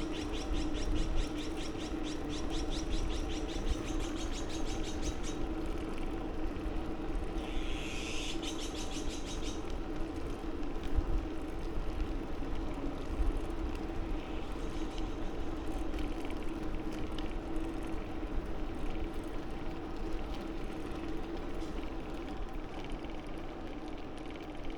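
Steady hum and wind rumble of a bicycle being ridden. A fast, evenly pulsing high trill of a bird or insect comes over it for the first five seconds and again briefly about eight seconds in.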